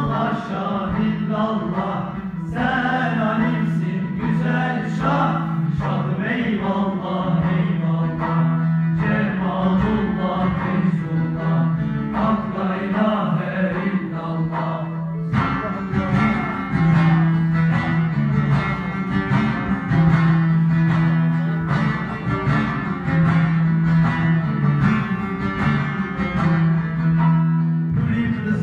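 Turkish Alevi devotional song (nefes): voices singing over plucked string accompaniment and a steady low drone.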